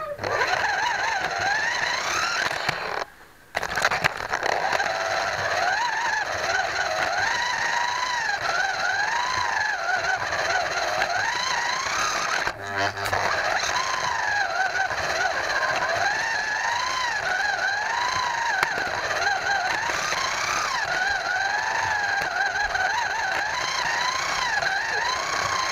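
Scalextric slot car's small electric motor whining as it laps the track, heard on board the car, its pitch rising and falling with the throttle. It cuts out briefly about three seconds in and dips again about halfway through.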